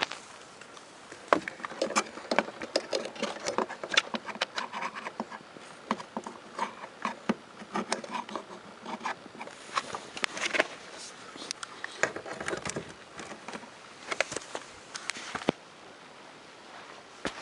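Irregular clicks, knocks and short scrapes from things being handled, with no motor running.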